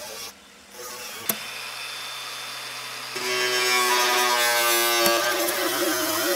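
A power tool's motor whining at a steady pitch. A sharp click comes about a second in, and the whine turns louder and fuller with a hiss above it about three seconds in, then stops abruptly about five seconds in.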